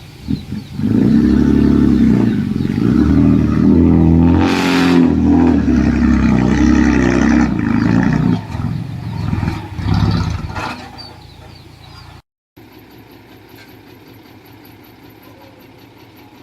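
Heavy diesel construction machine engine revving hard under load for several seconds, then dropping back. After a brief cut, an engine runs steadily at a lower level.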